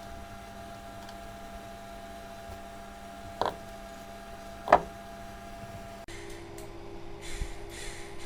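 Car radiator cooling-fan electric motor running with a steady hum, with two sharp clicks partway through; about six seconds in the hum changes abruptly to a lower pitch, with some scraping noise over it.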